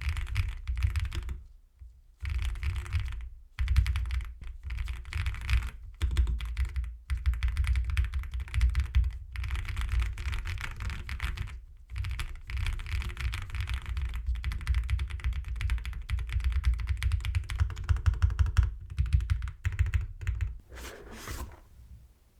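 Typing on an Akko M1 V5 mechanical keyboard: fast, continuous keystrokes with a deep low thud on each bottom-out, broken by a few brief pauses.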